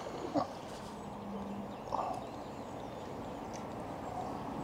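Lakeside outdoor ambience: a steady hiss of wind and background noise with a faint low hum, and two brief faint call-like sounds, one about half a second in and one about two seconds in.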